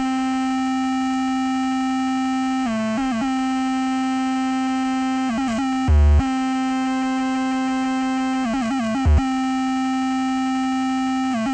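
Electronic music: a held synthesizer note, broken every few seconds by a quick little run of notes, with two short deep bass hits about six and nine seconds in.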